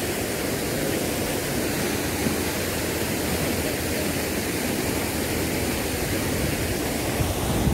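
Wind buffeting the microphone outdoors: a steady rushing hiss with an uneven rumble underneath.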